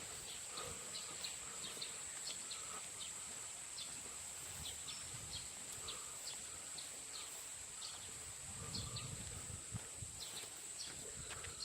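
Insects droning in a continuous high buzz, with many short, high chirps or ticks scattered over it and a brief low rumble about nine seconds in.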